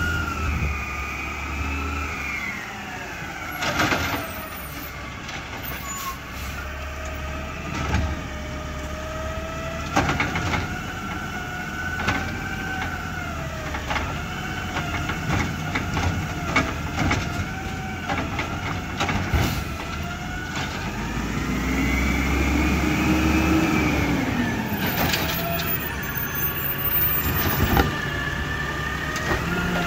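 Peterbilt 320 CNG side-loader garbage truck running as it drives and pulls up, its engine and whine rising and falling in pitch, with a rise and fall in revs about two-thirds of the way through. Several sharp clanks and knocks come from the truck body.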